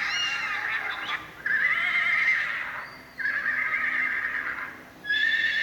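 Horse whinnying: a run of long, shrill, quavering whinnies. One starts about a second and a half in, another just after three seconds, and a third near the end.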